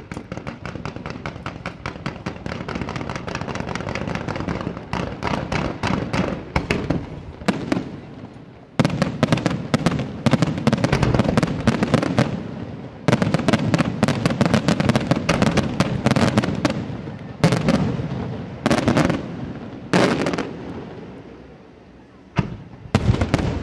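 Fireworks display: a dense run of rapid pops and crackles that builds over the first several seconds, then repeated loud aerial shell bursts with crackling between them.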